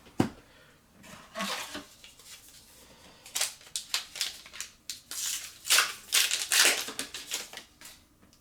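A foil trading-card booster pack being torn open and handled, with a run of crinkling crackles. There is a single sharp tap just after the start.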